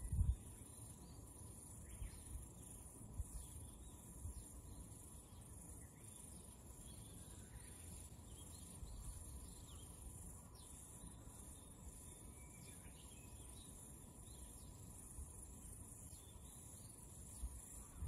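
Quiet outdoor ambience: a steady high insect trill, with brief low bumps of wind on the microphone, the loudest right at the start.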